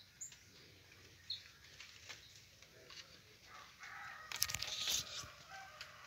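A rooster crows once, a held call of about a second and a half starting a little before the fourth second, with some rustling and clicks at the same time; before it, only faint clicks and rustles.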